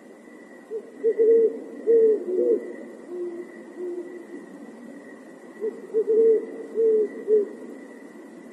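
Owl hooting in two phrases, each a quick run of higher hoots followed by lower, longer notes, starting about a second in and again about five and a half seconds in. A steady thin high tone runs underneath.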